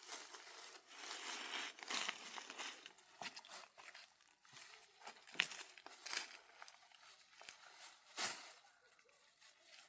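Irregular rustling and crackling, with several sharp snaps; the loudest is about halfway through and another comes near the end.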